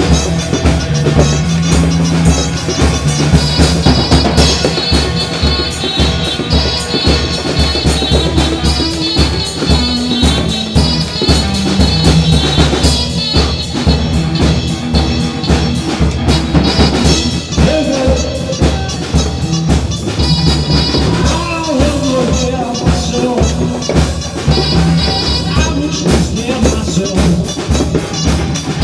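Band music with a steady drum-kit beat and electric guitar.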